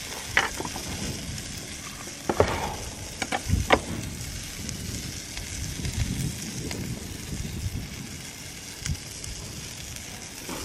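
Bacon-wrapped sausages sizzling as they fry in a pan, spitting fat, with a few sharp clicks of a spoon against the pan or plate in the first four seconds.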